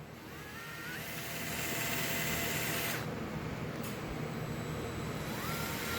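Craftsman inertia screwdriver's small electric motor whining as it spins up, its pitch rising and then holding steady, with a rougher whirring for a couple of seconds. Near the end the motor spins up again with a second rising whine.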